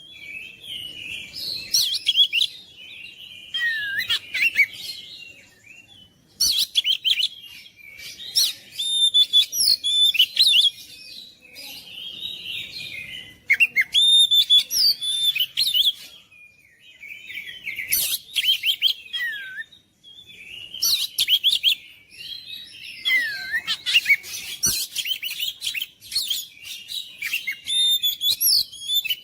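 Oriental magpie-robin (kacer) singing: loud, varied phrases of clear whistles, gliding notes and harsh clicking chatter, each burst lasting a few seconds with short pauses between them.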